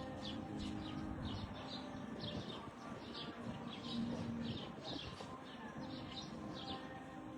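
Bird chirping: short, high chirps repeating about twice a second, over a low steady hum.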